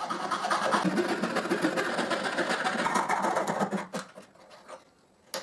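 Fine-bladed marquetry saw (fret saw) cutting through plywood in quick rasping back-and-forth strokes, which stop just before four seconds in. A couple of light clicks follow, the sharpest at the very end.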